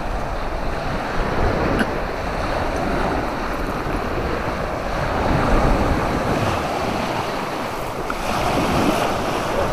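Sea surf washing onto the beach in a steady rush, with wind buffeting the microphone.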